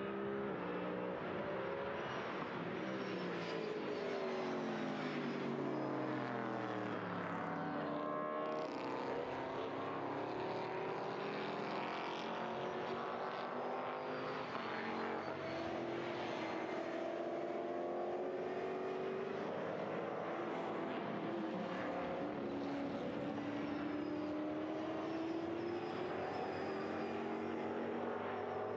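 Several V8 touring race cars' engines at racing speed, their overlapping engine notes rising and falling as they accelerate, shift gear and pass by.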